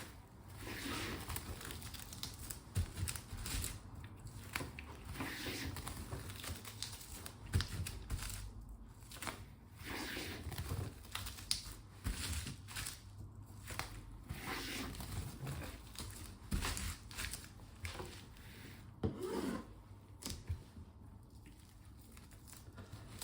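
Plastic cling film crinkling and rustling, with occasional tearing sounds, as it is stretched and wrapped around a bamboo sushi mat; soft, irregular rustles throughout.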